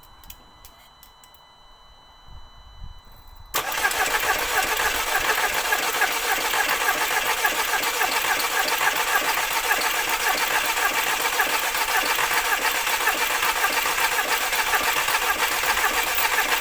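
MK2 Audi TT four-cylinder engine cranking on the starter motor without catching, a steady rhythmic churn that starts suddenly about three and a half seconds in. It cranks without firing because air is still in the fuel system after the injectors were removed, so fuel has not yet reached the injectors.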